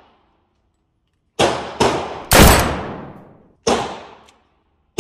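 Semi-automatic pistol fired four times at an indoor range, each shot echoing off the concrete lane: two shots about a second and a half in, the loudest just after, and a fourth about a second later.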